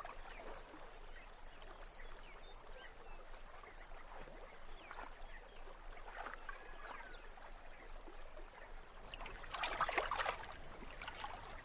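Faint river ambience of water lapping and trickling. Near the end a louder stretch of water sloshing comes as a gharial moves through the shallows.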